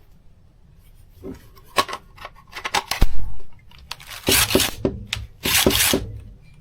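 Clicks and knocks from handling a cordless impact driver, then two short bursts of its brushless motor spinning freely under brief trigger pulls.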